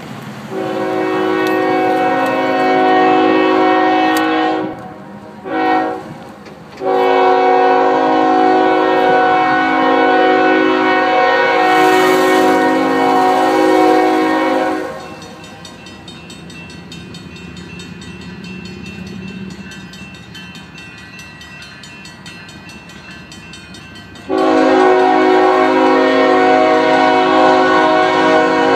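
Union Pacific diesel locomotive sounding its multi-note air horn as the container train approaches: a long blast, a short one, then a long held blast. For about nine seconds only the quieter low rumble of the oncoming train is heard, then the horn sounds again in a long blast near the end.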